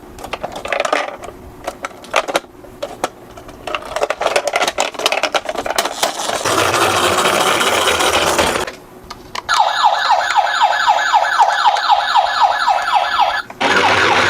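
Toy mini cars clicking and clattering as they run. About two thirds of the way in, a toy emergency vehicle's electronic siren sounds for about four seconds as a fast repeating rising sweep, roughly three to four sweeps a second.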